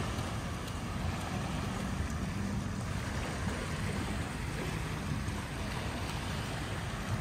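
Small waves washing steadily onto a sandy shore, with wind noise on the microphone.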